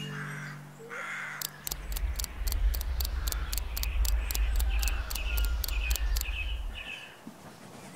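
Crows cawing over a fast, even ticking of about four ticks a second, with a low rumble beneath; the ticking and rumble start about a second and a half in and stop near the end.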